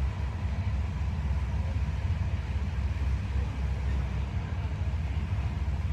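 Steady low rumble of a moving passenger train heard from inside the carriage.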